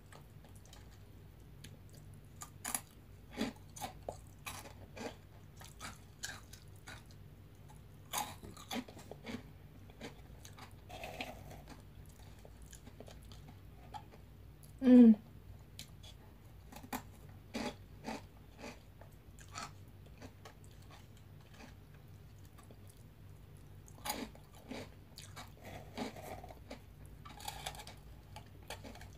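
Crunchy vegetable straws being bitten and chewed close to the microphone: irregular, scattered crunches. A short sound from the eater's voice comes about halfway and is the loudest moment.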